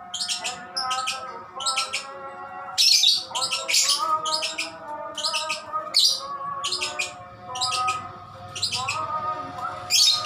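Male lovebird chirping in short, sharp, high-pitched bursts, about one or two a second, over background music with held notes. This chatter is presented as a sign that the male is about to go 'konslet'.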